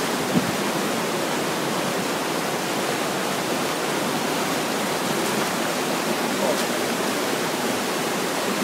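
Muddy river floodwater rushing, a steady even noise with no breaks.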